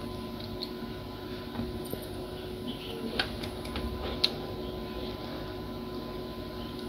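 A steady hum with a few light clicks and taps about three and four seconds in, from handling a small circuit board and a soldering iron while desoldering capacitors.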